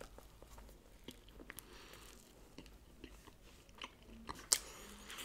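A person biting into and chewing a soft kebab wrap close to the microphone: faint mouth sounds with scattered small clicks, and a sharper click about four and a half seconds in.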